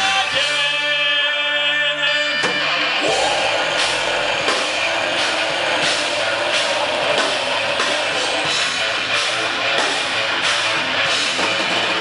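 Rock band playing live: a held, sustained chord for the first couple of seconds, then the full band comes in, with drums keeping a steady beat.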